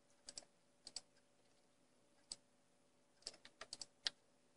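Scattered sharp clicks of a computer mouse and keyboard, several in quick pairs, clustered about a second in and again past the three-second mark, over faint room hum.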